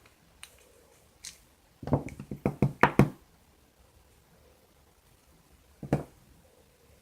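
Small hard RC truck parts knocking against each other and the work surface as a rear hub is handled and taken apart: a couple of light clicks, then a rapid run of about ten knocks over a second, and one more knock near the end.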